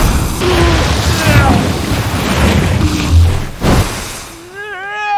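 Film sound effects of a magical duel: a loud rushing roar of flames with heavy booms and a sharp hit a little after three seconds. It dies down near the end into a wavering, wailing cry.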